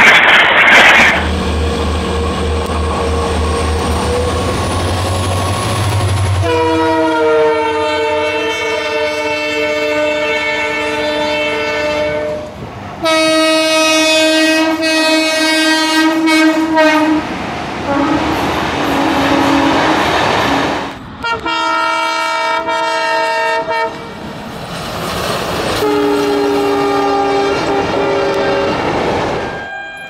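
Indian Railways locomotive horns: four long multi-tone chord blasts, each a few seconds long. Between them comes the steady noise of passing trains, with a low rhythmic clatter over the first few seconds.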